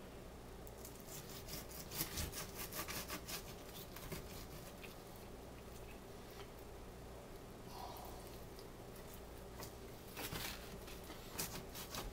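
Long kitchen knife sawing through a rack of raw pork spare ribs on a plastic cutting board, cutting through the cartilage rather than bone. It gives faint rasping strokes in two runs, one starting about a second in and another near the end, with a quieter spell between.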